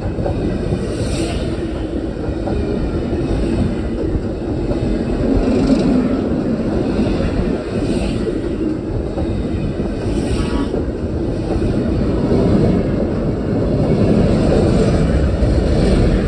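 Railway carriages rolling past at close range: steel wheels on the rail and the bogies make a steady heavy rumble, with a brighter hiss swelling about every two seconds.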